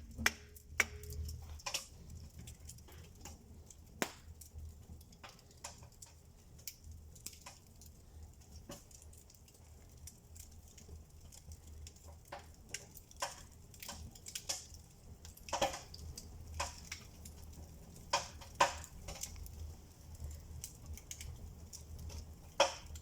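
Faint, irregular crackling and clicking of a small fire in a brick mangal's firebox during a draft test, over a low steady rumble.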